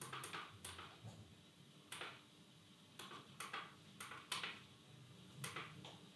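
Faint clicks of a Danfoss VLT drive's control-panel keypad buttons being pressed, about a dozen at uneven intervals while scrolling through the parameter menus.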